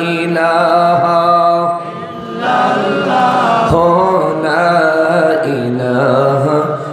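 A man's voice chanting an Islamic devotional recitation into a microphone, sung in a slow melodic style with long held notes that bend and turn. The voice eases off briefly about two seconds in.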